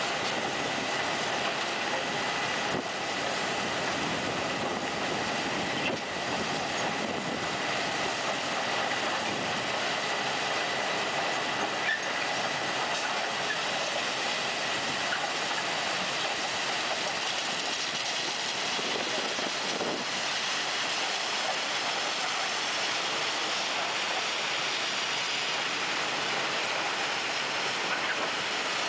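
A rail-mounted track-maintenance work train, its digging and conveyor machinery running, moving slowly along the track. The sound is a steady mechanical din with a faint steady high tone and a few light knocks.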